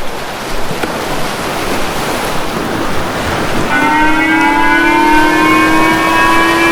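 Tsunami warning siren starting about halfway through as a chord of steady tones, slowly rising in pitch. Before it there is only a rushing hiss like surf.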